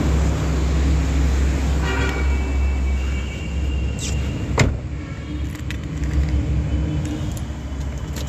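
Car running, heard from inside the cabin: a steady low engine and road rumble, with a single sharp click about four and a half seconds in.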